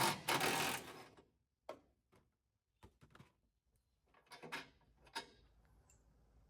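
Rattle gun (impact wrench) running for about a second as it undoes a bolt holding the rear bumper reinforcement. A few separate metallic clicks follow as the bolts and parts are handled.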